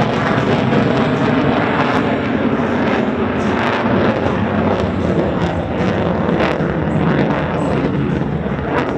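F-35B Lightning II's Pratt & Whitney F135 turbofan engine, a loud, steady jet roar as the fighter manoeuvres at display power.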